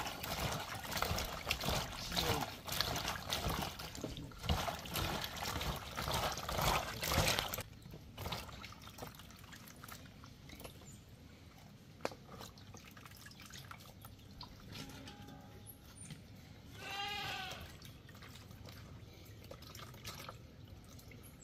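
Hands swishing and squeezing sorrel calyces in a bowl of water to wash them, with splashing and sloshing that stops about a third of the way in. Later a single wavering animal bleat is heard, after a fainter call just before it.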